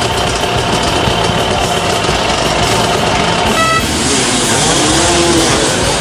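A pack of enduro dirt bikes revving together at a mass race start, the engines rising in pitch after about four seconds as they pull away.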